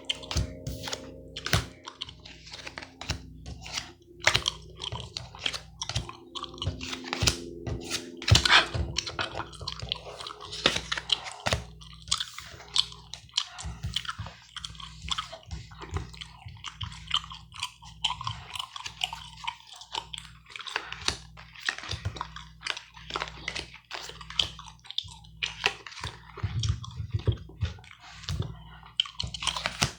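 Gum chewing: a dense, irregular run of short smacking clicks, several a second.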